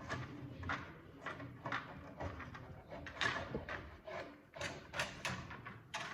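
14-2 electrical cable and fish tape scraping through the inside of a drywall wall as they are pulled, in a series of short rubbing strokes about two a second.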